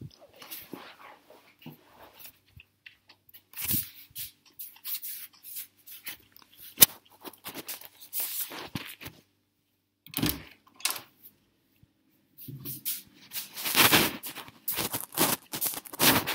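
Rustling and knocking of a handheld recording device being carried about, with scattered clicks, one sharp click about seven seconds in, and denser handling noise near the end.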